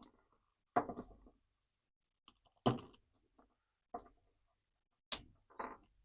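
Hard plastic parts of a Masterverse Whiplash action figure clicking and knocking as its armor is worked off by hand. There are about five short knocks at uneven intervals.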